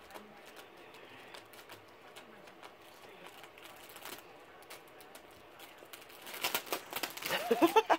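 Plastic Oreo cookie package crinkling and crackling as a cat noses and eats inside it, soft at first and louder about six seconds in. A short burst of a human voice comes near the end.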